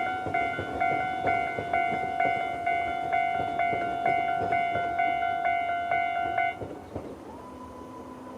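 Japanese railway level-crossing electronic warning bell sounding its repeated clanging strike, a little over two strokes a second, then cutting off suddenly about six and a half seconds in. A quieter steady whine then rises and holds, the electric crossing barriers' motor lifting the arms.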